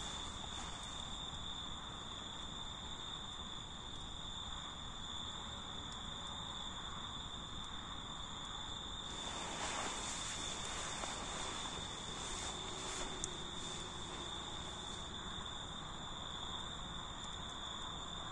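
Insects chirring in one continuous high-pitched tone, over a soft outdoor rustle that grows briefly about halfway through.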